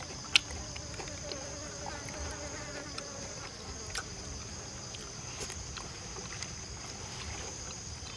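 Steady high-pitched insect drone over a low rumble, with a few sharp clicks of wooden chopsticks against the fish platter and bowl, the loudest just after the start.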